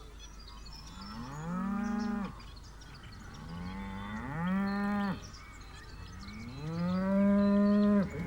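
Livestock calling: three long calls, each rising in pitch and then holding, the last the longest and loudest.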